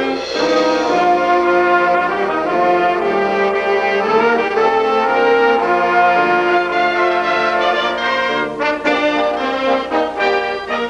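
A concert band playing, with trombones and trumpets to the fore in held chords.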